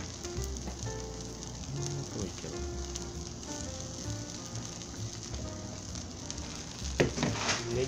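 Takoyaki batter sizzling steadily in a hot, oiled cast-iron takoyaki pan.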